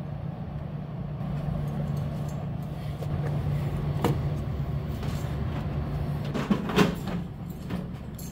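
Friedrich PTAC air conditioner running with a steady low hum, with a few light clicks and knocks as the plastic cover is fitted over its control panel, about four seconds in and again near seven seconds.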